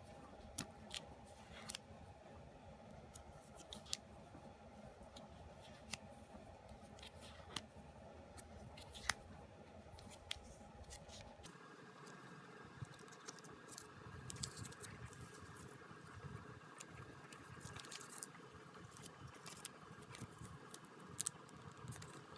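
Quiet handling noises of packaging being opened: sparse, irregular small clicks and snips over a low steady hum, with the hum changing abruptly about halfway through.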